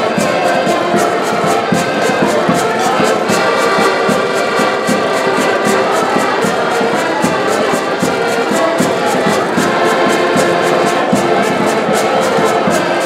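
A group of button accordions playing a lively folk tune together, over a steady, quick clicking percussion beat.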